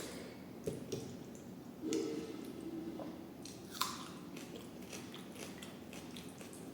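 Close-up chewing and wet mouth noises of a person eating a rice-and-curry meal, with small clicks throughout and three louder sharp smacks or crunches.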